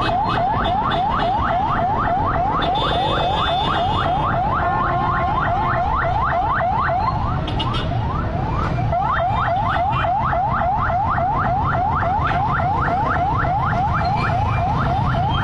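Car alarm sounding a fast, repeating rising whoop, about five sweeps a second, which fades briefly in the middle and comes back. A steady low rumble of street noise lies underneath.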